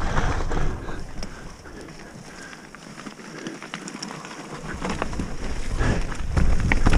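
Mountain bike on a dirt forest trail: tyre rumble and wind noise on the action camera die down about a second in as the bike slows almost to a stop, leaving scattered light clicks and crunches, then build again near the end as it picks up speed.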